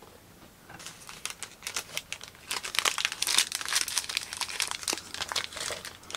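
Foil trading-card packs crinkling as they are handled, starting about a second in and turning busier and louder.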